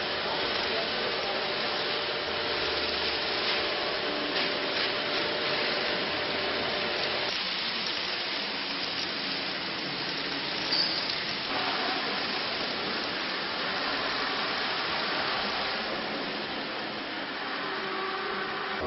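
Potato washing machine running, a steady rushing, rubbing noise, with a brief louder tick about eleven seconds in.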